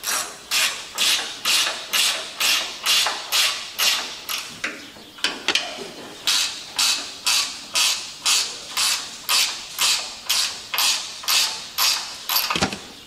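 Hand ratchet wrench cranking a bolt in steady back-and-forth strokes, about two a second, the pawl rasping on each swing.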